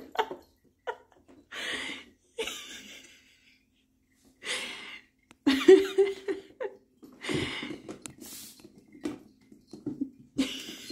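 A cat biting and pawing at a plastic food container with a lid, making irregular scrapes and taps, mixed with a person's breathy laughter. The loudest burst comes about halfway through.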